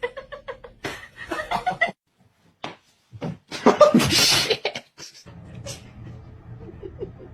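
A person laughing in quick, rapid bursts, then a loud, harsh outburst about three and a half seconds in, followed by a low steady hum.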